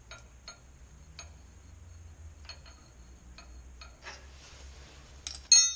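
Scattered light metallic clicks as tools and parts of a wheel loader's steering cylinder are handled during disassembly, then a sharp, ringing metal-on-metal clink near the end, the loudest sound.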